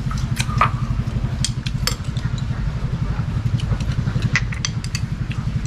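A small engine running steadily at idle, a rapid even low throb, with scattered light clicks and taps over it.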